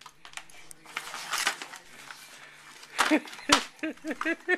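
Plastic ring-shaped cat ball-track toy scraping and knocking as puppies nose and paw at it, with two sharp knocks about three seconds in. A quick run of short rising-and-falling vocal sounds follows near the end.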